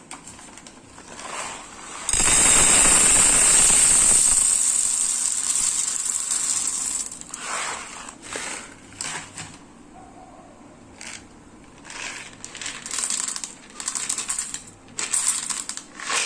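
Something goes into hot oil in a pan with a sudden, loud sizzle about two seconds in, and the sizzle slowly dies down over several seconds. Short, irregular scrapes and clinks follow, as of a spatula stirring in the pan.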